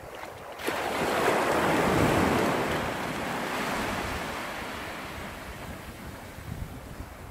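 Small sea wave breaking and washing up a sandy shore: the hiss of surf starts suddenly about a second in, swells, then slowly fades as the water runs back.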